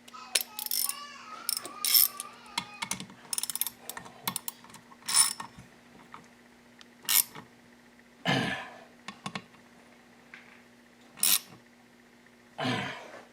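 Hand tools and metal engine parts clicking and clinking at irregular moments, with a few short scrapes, as the bearing keepers and their screws are fitted to a Yamaha WR426F crankcase.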